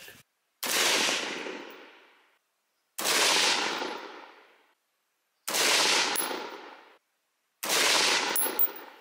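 Four shots from an AR-15 rifle in .223/5.56 firing 77-grain ammunition, in slow aimed fire about two to two and a half seconds apart. Each is a sharp crack with a tail that fades over about a second and a half.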